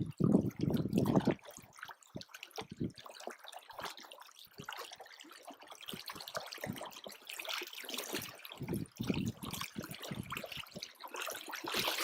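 Water splashing and trickling unevenly, in irregular small bursts, with a heavy low rumble in the first second or so.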